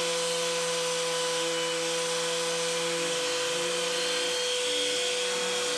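Electric random orbit sander running steadily on a small oak picture frame, a constant motor hum and whine over a sanding hiss. Its pitch dips slightly a few times as it is worked over the wood.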